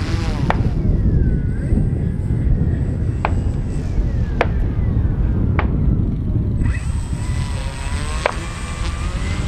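Baudis Skywalker electric hotliner on fast passes: a whining whistle with pitch that slides as it goes by, once at the start and again from about seven seconds in. Five sharp distant gunshots crack over it, with a steady low rumble underneath.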